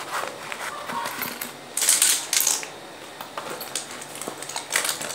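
A pencil case and stationery being handled: scattered light clicks and rattles, with two short scratchy rasps about two seconds in.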